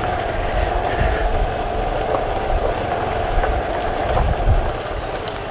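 Bajaj Avenger 220's single-cylinder engine running at low speed on a rough dirt track, with road and wind noise. Low thumps about one second in and again near four and a half seconds as the bike jolts over bumps.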